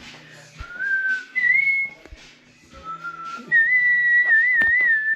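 A person whistling a short four-note phrase: a mid note, a higher one, a lower one, then a long note held with a wavering vibrato near the end.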